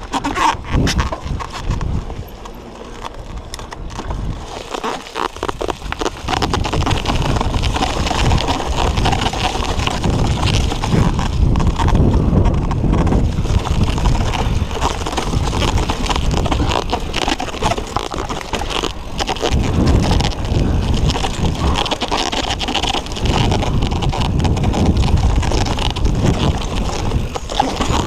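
Mountain bike riding fast down a dirt forest trail: wind rushing over the action camera's microphone together with tyre noise on the dirt, and sharp clicks and knocks as the bike rattles over bumps. Louder from about six seconds in.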